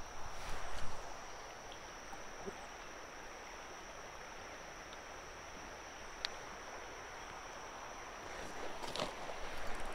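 Quiet creekside ambience: a soft wash of flowing water under a steady high-pitched insect drone, with a rustle in the first second, a single sharp click about six seconds in and more rustling near the end.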